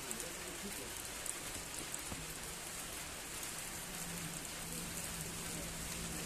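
Steady rain falling on wet pavement: an even hiss with scattered drop ticks. A low steady hum comes in about two seconds in and grows stronger from about four seconds.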